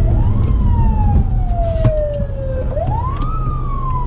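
Emergency vehicle siren wailing: a quick rising sweep followed by a slow falling tone, twice, over a steady low rumble.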